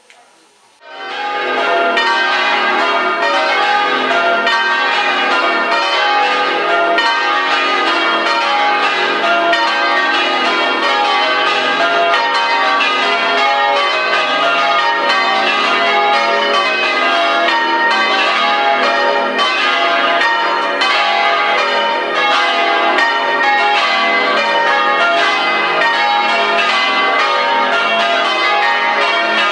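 Church tower bells in change ringing: a rapid, continuous run of bell strokes with their tones ringing over one another. The ringing starts suddenly about a second in.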